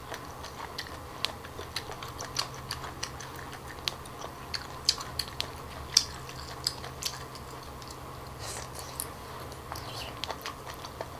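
Close-up sound of cooked octopus tentacle being chewed: a run of irregular, crisp clicks from the firm, crunchy flesh.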